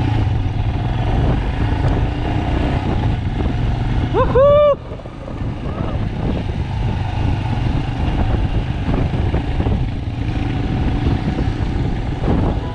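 Motorcycle engine running steadily on the move, heard from a camera mounted on the bike, with a heavy low rumble of engine and wind noise. About four seconds in, a short pitched tone rises and holds for half a second; it is the loudest sound.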